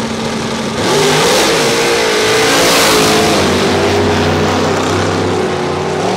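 Drag car launching hard off the line about a second in and accelerating down the strip at full throttle, the engine's pitch climbing and then holding high.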